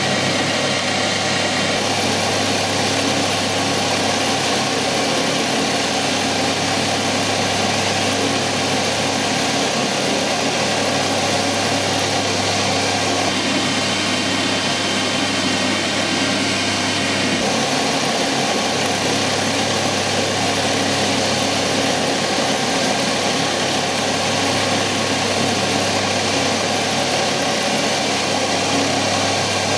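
Metal lathe running at 2000 RPM, spinning a small carbide end mill that cuts a slot dry into the end of a metal bar: a steady machine whine with many fine steady tones over a low hum.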